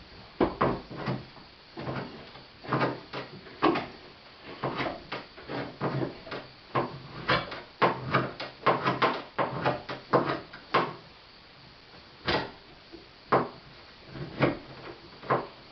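Cast iron parts of a hand-cranked Corona corn mill knocking and clanking as they are handled and fitted together during reassembly: irregular sharp knocks, some in quick runs, with short pauses between.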